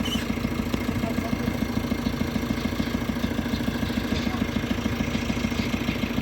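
Heavy diesel engine running steadily at a low, even speed, with a fast regular beat.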